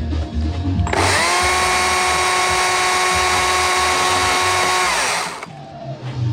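Electric power tool, such as a grinder used in carving work, spinning up about a second in, running at a steady high whine for about four seconds, then winding down. Faint music underneath.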